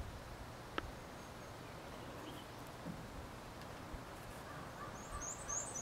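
Quiet outdoor ambience with a faint low rumble, a single sharp click about a second in, and a small bird chirping rapidly and high-pitched near the end.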